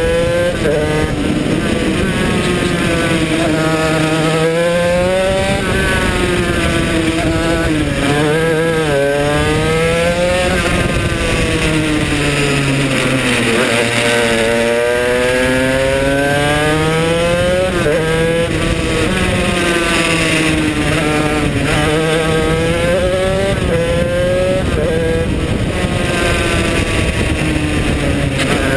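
Tony Kart CR80 six-speed shifter kart's two-stroke engine at racing speed, its pitch climbing through the gears with a sudden drop at each upshift, falling away as it slows for corners and climbing again as it accelerates out.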